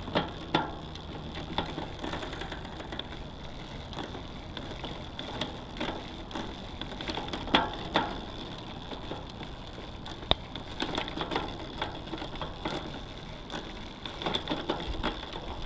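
Road bike drivetrain being turned by hand: chain running over the rear cassette and derailleur, with many irregular clicks and ticks, as the rear derailleur's adjustment is checked.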